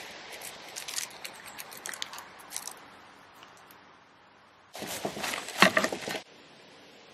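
Kitchen knife cutting through a whole pineapple's tough skin on a wooden cutting board: a sudden burst of crunching and cracking lasting about a second and a half, a little past the middle. Before it, light scattered rustling and ticks.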